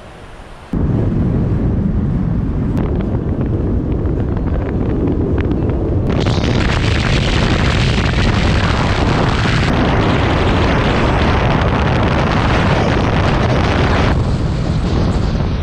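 Wind buffeting the microphone of an action camera on a car driving at highway speed, a heavy low rumble mixed with road noise. It cuts in suddenly under a second in; a brighter hiss joins about six seconds in and drops away near fourteen seconds.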